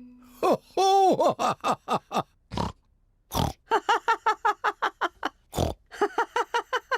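Cartoon pig characters snorting. There are quick runs of short snorts, about five a second, broken by a few sharper, noisier snort blasts.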